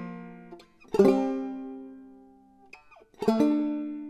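Vega Tubaphone banjo, tuned gCGCD with a capo at the second fret, played clawhammer: two slow brushed chords about two seconds apart, each left to ring and fade away.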